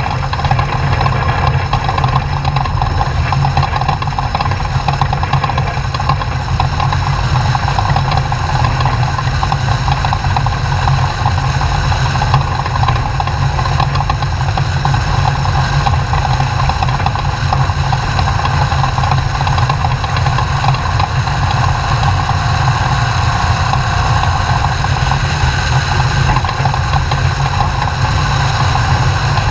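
Class 2000 off-road race truck's engine running steadily, a strong low drone holding the same pitch throughout with no revving.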